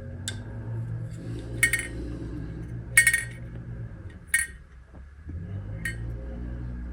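Carburetor float-bowl parts and tools being handled on a bench: about five light metallic clinks, some briefly ringing, spaced a second or so apart over a steady low hum.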